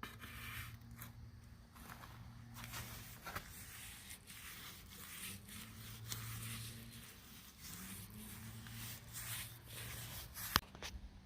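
A paintbrush scraping over rough log siding in short, irregular strokes, with a low steady hum underneath and one sharp click near the end.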